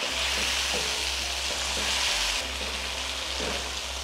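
Chicken, tomatoes and green chillies sizzling in hot oil in a wok while being stirred with a wooden spatula. A steady sizzle, a little louder in the first half, with a low hum underneath.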